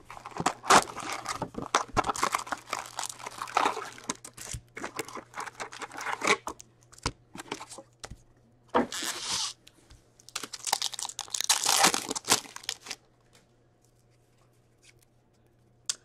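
Upper Deck hockey card pack wrappers being torn open and crinkled, with cards being handled, in irregular bursts that stop a few seconds before the end.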